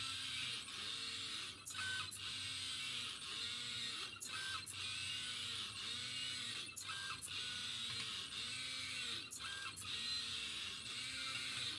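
Belt-driven pen plotter's stepper motors whirring, their pitch gliding up and down as the carriage traces curves. A pair of sharp clicks comes about every two and a half seconds.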